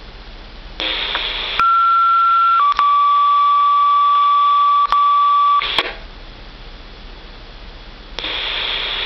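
Two-tone sequential paging tones from a dispatch pager test, received over a two-way radio. The radio hiss opens, a steady higher tone sounds for about a second, then a lower tone is held for about three seconds before the channel closes with a brief burst. Near the end the radio opens again with hiss as another transmission starts.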